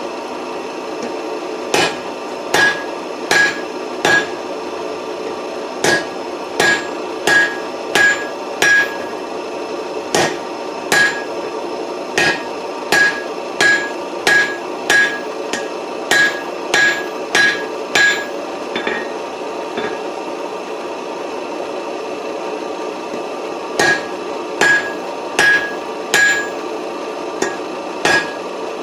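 Rounding hammer striking hot 4140 steel on an anvil, forging the octagonal taper of a round punch's striking end: runs of blows at about one to two a second, each with a short bright ring, with a pause of about five seconds roughly two-thirds of the way through. A steady hum runs underneath.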